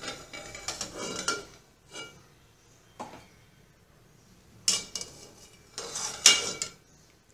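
Steel spoon and stainless steel cookware clinking and clattering in short bursts: a run of clinks at the start, single knocks about two and three seconds in, and two more bursts near the end, the loudest just after six seconds.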